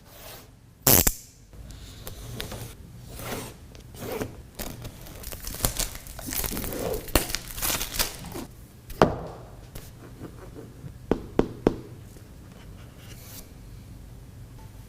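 Earbud packaging being opened by hand: tearing and crinkling of wrapping, cardboard scraping and rubbing, with sharp clicks and knocks, a loud one about a second in and a quick run of three late on.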